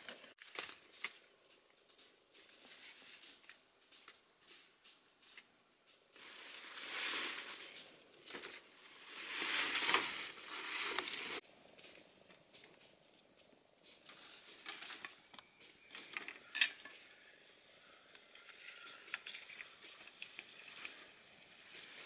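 Rustling and scraping of leafy undergrowth and dry branches being pulled through it, in two louder stretches of a few seconds each in the middle, with a few sharp cracks of dry wood later on.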